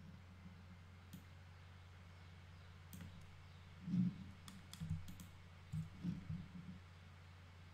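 Scattered clicks of a computer mouse and keyboard on a desk, mostly in the middle of the stretch, with several low soft thumps, the loudest about four seconds in. A steady low hum runs underneath.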